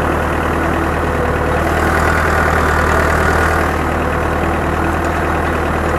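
Ursus C-4011 tractor's two-cylinder diesel running steadily while its manure spreader throws manure out behind it.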